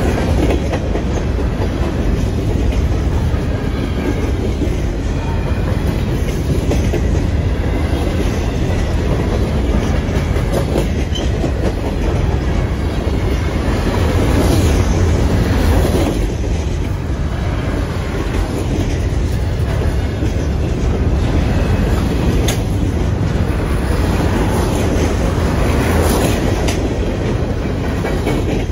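Norfolk Southern freight train's loaded waste-container cars rolling past close by: a steady heavy rumble of steel wheels on rail with clickety-clack over the rail joints.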